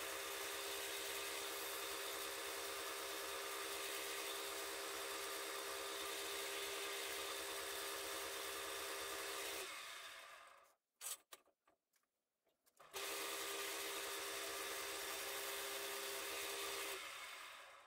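Wood lathe running with a steady hum while a small turned spindle is sanded by hand. The sound dies away about ten seconds in, leaving a near-silent gap with a couple of clicks, then comes back abruptly and fades out again near the end.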